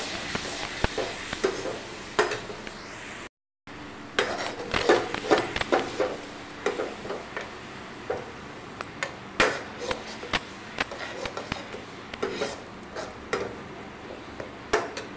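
Metal spoon scraping and clinking against a kadai as spiced masala in oil is stirred, in a quick run of irregular knocks. The sound cuts out completely for a moment a little over three seconds in.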